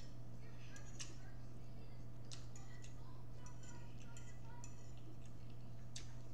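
Metal fork clicking and scraping against a plate a few times, each a short sharp click, over a steady low electrical hum.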